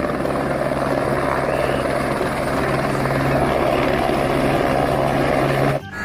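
Helicopter rotor chop with a steady engine hum, held at an even level, cutting off suddenly near the end.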